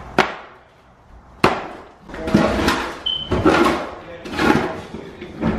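Interior demolition: sharp blows followed by repeated crashing and breaking of building material, about one crash every half-second to second in the second half.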